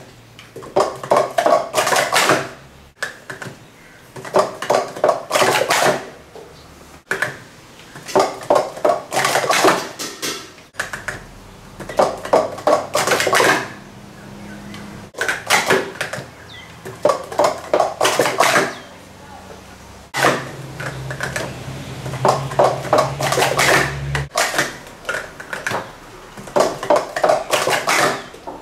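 Plastic Speed Stacks cups clattering in quick 3-3-3 sport stacking runs, stacked up and down in under two seconds each. About seven runs, each a tight burst of clacks, repeat every three to four seconds with short pauses between.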